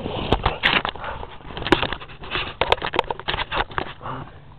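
Fireworks crackling and popping: an irregular run of sharp cracks over dense crackle, with several louder reports along the way.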